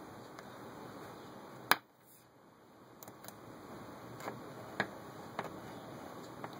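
Side-cutting safety can opener being cranked around the rim of a tin can: scattered light clicks as the key turns, with one sharp, loud click a little under two seconds in.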